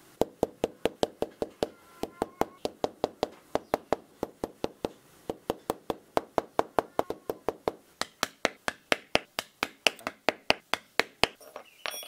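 A small leatherworking hammer tapping a glued leather strap piece down onto a leather panel: rapid, even taps at about four to five a second, stopping about a second before the end.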